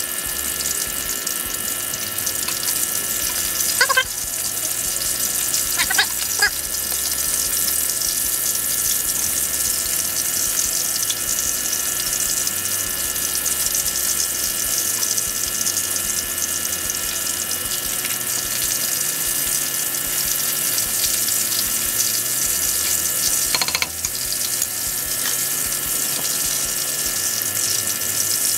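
Cornstarch-coated sea robin pieces frying in hot oil in a small skillet, a steady sizzle, with a few knocks of a wooden spatula against the pan about 4 and 6 seconds in.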